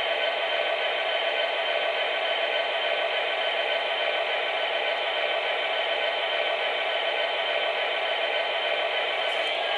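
Proto-Sound 3 diesel engine sound of four MTH SD70ACe model locomotives running together through their small onboard speakers: a steady, hissing drone with a few held tones.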